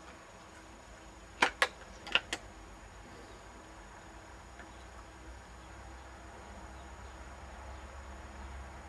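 Four sharp clicks in quick succession, in two close pairs about half a second apart, over a steady faint background hum.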